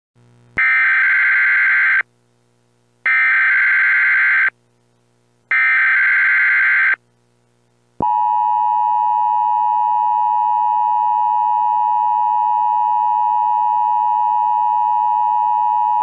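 Emergency Alert System tones: the digital SAME header plays as three identical harsh, screechy data bursts, each about a second and a half long with a short gap between. About halfway through, the steady attention tone begins and holds at one loud, unchanging pitch.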